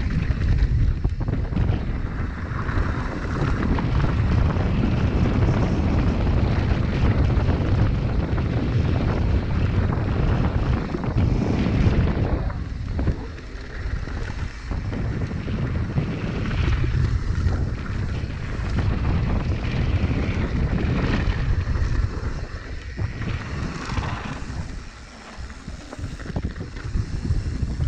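Wind rushing over the camera microphone, with the rumble of a mountain bike's tyres on a dirt trail, as it rides downhill at speed. The noise drops briefly about halfway through and again near the end.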